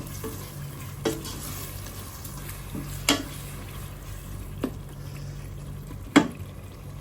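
Onion-tomato masala frying in a pan while it is stirred with a spoon: a faint steady sizzle, with the spoon knocking against the pan four times, the last knock the loudest, near the end.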